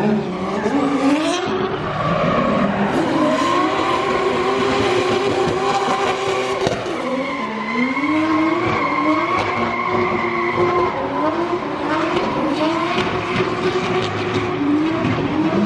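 Drift car engine revving hard through a run, its pitch climbing and dropping again and again with one long high stretch in the middle, over tyres skidding.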